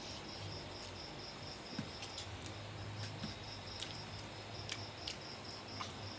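A cricket chirps steadily in a fast, even pulse, over a low hum. Scattered sharp clicks and smacks of someone eating break in every second or so.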